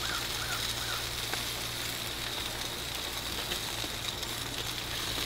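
Chicken and okra sizzling on a propane gas grill: a steady hiss with faint scattered crackles. A few short bird chirps come within the first second.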